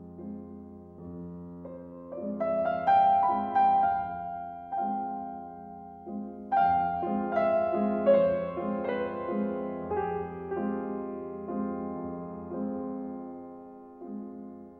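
Solo piano music: a slow piece with a steady low accompaniment and struck melody notes that grow louder about two seconds in, and again after about six.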